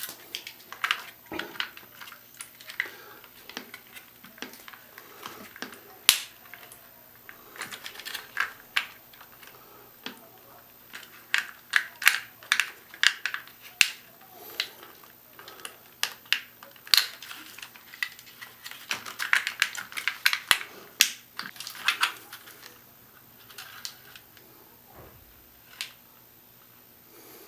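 Irregular clicks, taps and light knocks of small plastic parts being handled as a replacement 40 mm cooling fan is tried in an LED panel's fan mount.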